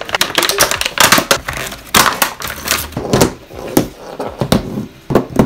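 Stiff clear plastic blister packaging of a new hot glue gun crackling and crinkling as it is pulled open by hand, in quick irregular crackles.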